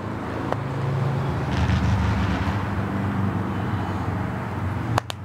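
An engine running with a low steady hum that swells slightly about two seconds in. A sharp click about half a second in, and another near the end.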